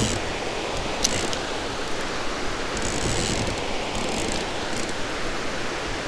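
Casting reel on a catfish rod being cranked to bring in a hooked catfish, its gears clicking and whirring steadily, over a steady background hiss.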